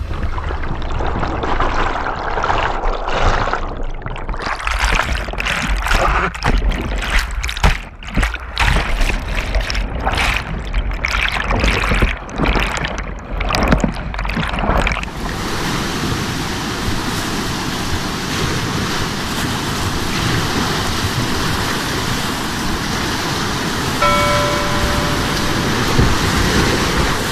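Muffled underwater churning and splashing in a capsize, cutting in and out as the kayak camera dips under and breaks the surface of brown whitewater, giving way about halfway through to the steady rush of a big river rapid. A brief high tone sounds near the end.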